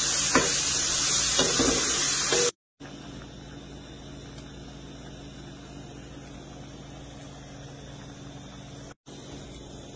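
Shredded chicken and vegetables sizzling in a hot frying pan, with a few scrapes of a wooden spatula stirring them. The sizzle cuts off about two and a half seconds in, leaving only a quiet steady room hum.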